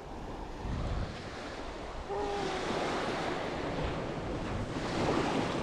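Small waves breaking and washing up over a pebble beach, with wind on the microphone; the wash grows louder about two seconds in.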